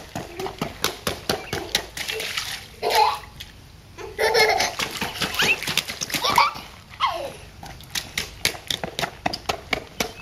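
Toddlers' rubber rain boots stomping and splashing in puddles on wet pavement, a quick run of slaps and splashes about four a second, with children's voices and laughter breaking in a few times.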